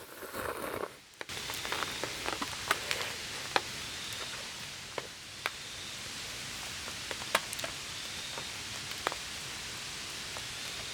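Small wood fire crackling: irregular sharp pops and snaps, a few each second, over a steady hiss.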